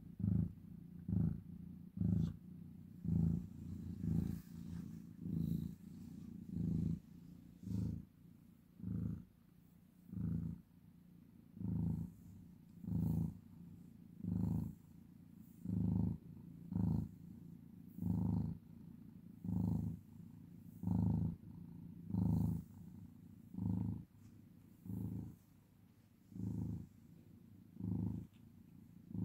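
Ginger tabby cat purring steadily while being stroked, the purr swelling with each breath, roughly once a second.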